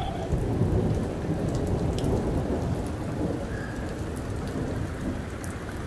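Steady heavy rain falling on the street and cars, with a low rolling rumble of thunder that is loudest in the first couple of seconds and slowly dies away.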